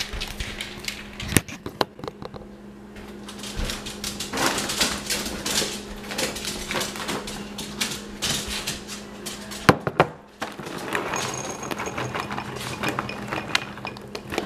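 Dog eating dry food from its bowl: irregular clicks, clinks and knocks, with one sharp knock about ten seconds in, over a steady low hum.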